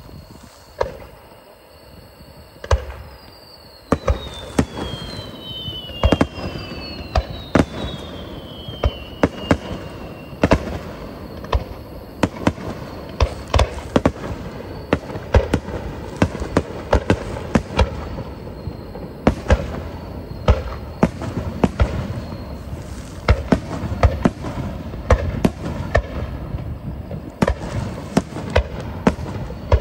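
Starmine fireworks barrage: a couple of separate bangs, then from about four seconds in a dense, irregular run of shell bursts and launches. Two or three whistles fall in pitch between about three and ten seconds in.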